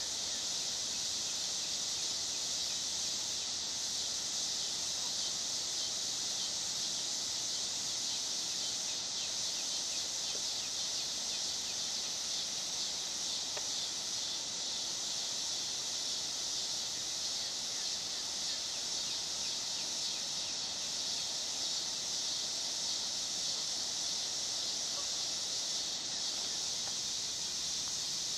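A steady, high-pitched chorus of insects trilling, with a fine, even pulsing that does not let up.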